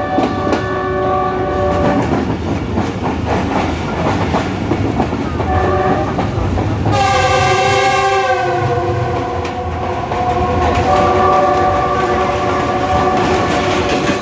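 Train running along the rails with wheel clickety-clack, its horn sounding several times. The longest and loudest blast comes about seven seconds in and lasts about three seconds.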